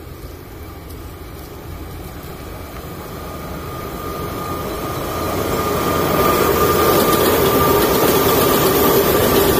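A freight train hauled by a pair of electric locomotives approaching along the line, the rumble of its wheels on the rails growing steadily louder for about six seconds and then holding as it comes close, with a steady high whine running over the rumble.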